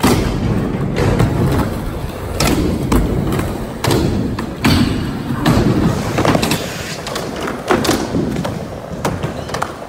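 Skateboards rolling with a low rumble over concrete and plywood ramps, broken by about a dozen sharp board thuds and clacks as the boards hit ramps, ledges and the floor.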